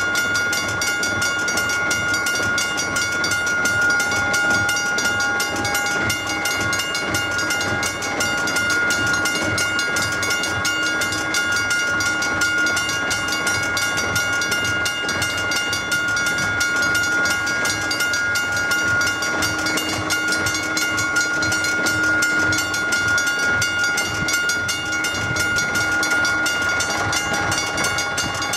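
Level crossing warning bell ringing steadily and unchanging with the barriers down, the signal that a train is approaching.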